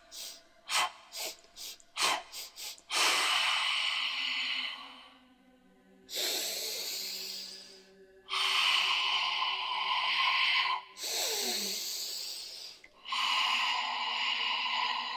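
A woman's breathwork: a run of quick, sharp breaths in the first three seconds, then five long, forceful open-mouthed breaths of about two seconds each, with short pauses between them.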